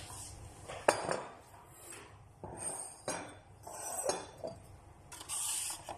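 Dishes and utensils clinking and knocking a few separate times while instant cup noodles are being prepared, the sharpest knock about a second in, with a brief hiss near the end.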